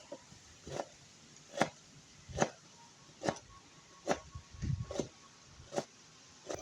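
A steady series of short, sharp strokes, a little more than one a second, as from hand work on food or a utensil. A brief low animal call sounds about two-thirds of the way in.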